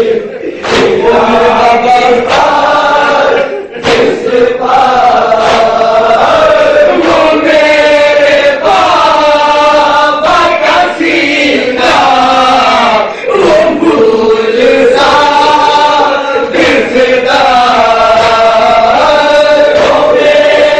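Nauha, an Urdu mourning elegy, chanted by a male reciter in long held, melodic phrases, with other men's voices joining in, and a few sharp slaps among the singing.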